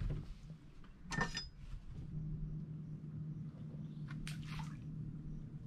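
A short splash of water about a second in as the fish is handled over the side, then a steady low hum, with another brief splash a little after four seconds.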